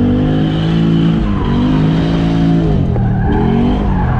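LS3 V8 in a Nissan 240SX held high in the revs while drifting, its pitch dipping and climbing back twice, over a steady hiss of sliding tyres.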